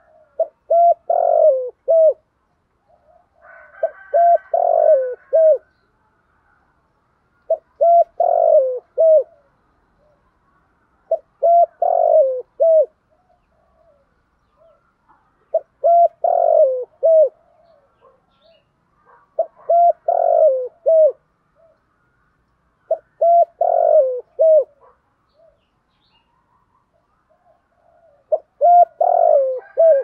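Spotted dove cooing: a short phrase of several low coos, repeated about every four seconds, eight times.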